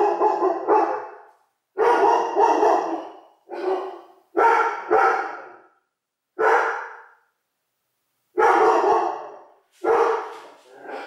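A dog barking over and over, in short runs of one to three barks with brief pauses between them.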